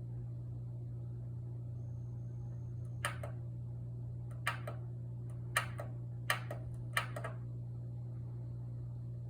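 Kenwood EW7507EK oil-filled radiator heater clicking, five sharp double clicks at uneven intervals from about three to seven seconds in, over a steady low hum. The clicking is the heater's fault symptom, with the heater not working and its lights blinking; the owner traced it to the thermal cutoff switch not making proper contact with the radiator.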